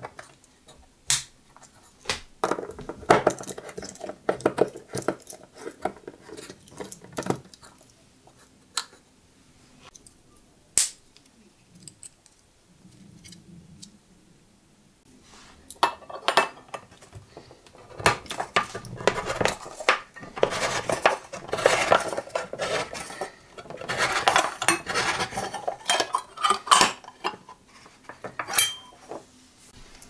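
Metallic clicks and scrapes from a Victorinox Swiss Champ pocket knife being worked against a wooden block. About halfway in, its can opener punches into and levers around the lid of a tin can, a dense run of metal clicks and scraping lasting about ten seconds.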